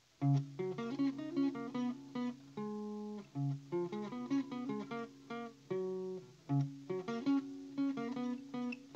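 Background music: a light melody of plucked acoustic guitar notes.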